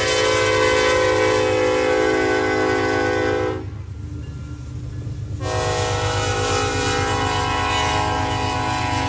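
Diesel locomotive air horn sounding a long blast that breaks off about three and a half seconds in, then a second long blast after a pause of about two seconds. The low rumble of the train runs underneath.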